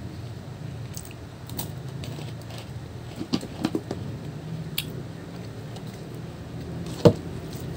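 Scattered small clicks and crackles from pulling apart and eating pomelo segments, over a steady low hum, with one sharper, louder click about seven seconds in.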